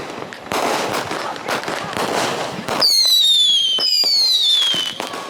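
Consumer fireworks going off: a loud rushing hiss for the first half, then two shrill whistles, each about a second long and falling in pitch.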